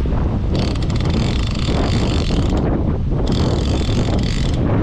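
Fishing reel whirring in two bursts, about two and one and a half seconds long with a short pause between, over heavy wind noise on the microphone.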